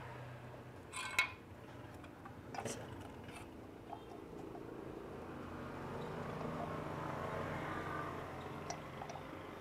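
Cutter pliers clicking and scraping against a rust-seized screw on an LPG stove burner as they grip and slip on its head: a few sharp metal clicks, the loudest about a second in, over a faint scraping noise that grows a little in the second half.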